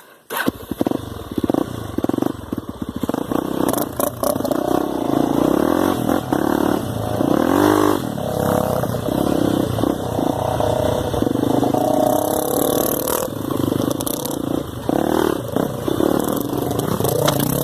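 Honda Tornado trail motorcycle's single-cylinder engine running under way on a dirt trail, its pitch rising and falling repeatedly as the throttle is opened and closed through the gears.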